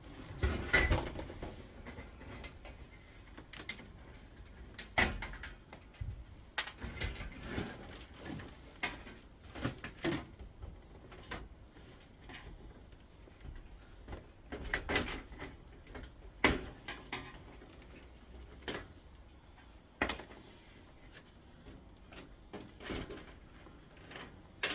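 Irregular clicks, knocks and clatter of hand tools and metal and plastic parts as a component is worked loose from a dismantled induction hob, with a few sharper knocks standing out.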